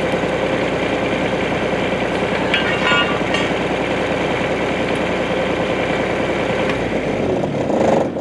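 Bobcat 320 mini excavator's diesel engine running steadily, with a brief run of higher-pitched clicks about three seconds in. Near the end it swells briefly, then stops abruptly.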